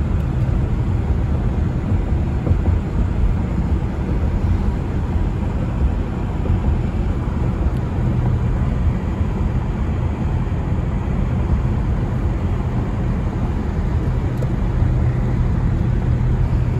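Steady road noise inside a moving car: engine hum and tyres running on wet pavement. The low hum grows a little stronger near the end.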